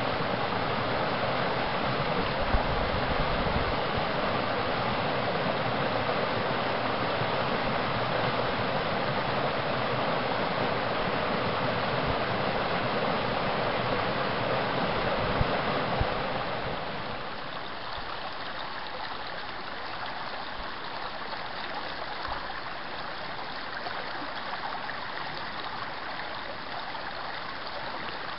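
Creek water rushing steadily over boulders in a small cascade. A little past halfway it drops to a softer, quieter flow as the water runs shallow over a gravel bed.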